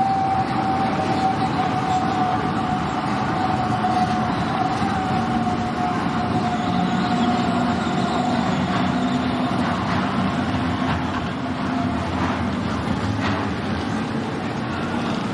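Zurich Be 4/8 'Sänfte' tram with motorised Be 2/4 'Pony' cars rolling past at close range on street rails. Over the running noise there is a steady high whine that slowly drops in pitch and fades out about twelve seconds in.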